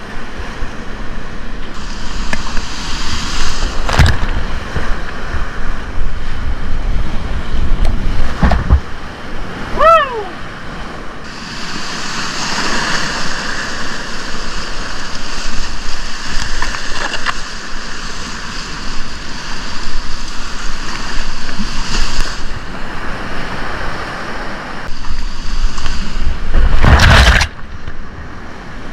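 Rushing whitewater of a river rapid heard from a kayak, with water splashing over the boat and wind rumbling on the microphone. Several louder splashes come through, the biggest near the end, and a short falling whistle-like tone sounds about ten seconds in.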